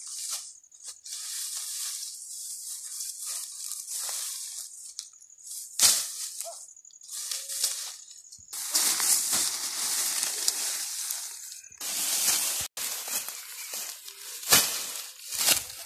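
Dry sugarcane leaves and tops rustling and crackling as they are trodden on and gathered into a bundle by hand, with a few sharper crunches along the way.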